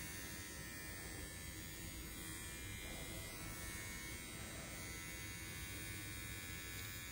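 Small battery-powered pet trimmer buzzing steadily as it clips the fur around a dog's eyes.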